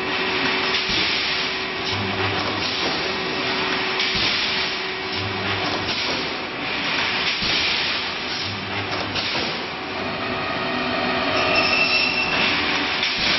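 Wire mesh welding machine running through its cycle: a short deep hum comes roughly every three seconds over a steady hiss and machine noise.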